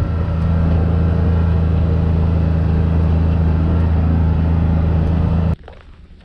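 Side-by-side utility vehicle's engine running at a steady speed, heard from inside the open cab, with a steady low drone and road and wind noise. It stops abruptly near the end, leaving quiet outdoor background.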